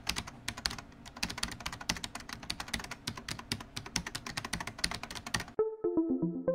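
Rapid typing on a computer keyboard, a fast run of sharp key clicks that stops about five and a half seconds in. A short melody of plucked notes stepping down in pitch then starts.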